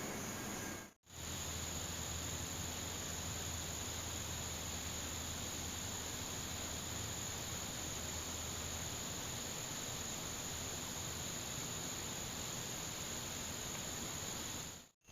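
Steady, high-pitched drone of an insect chorus, unbroken apart from a brief dropout about a second in.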